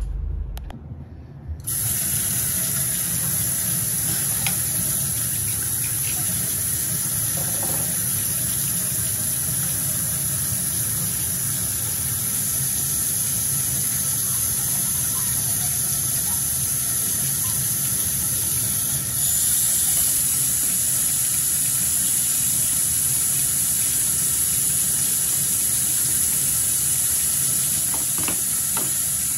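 Water running steadily in a bathroom, as from a tap or shower left on, beginning about two seconds in after a brief low car-cabin rumble.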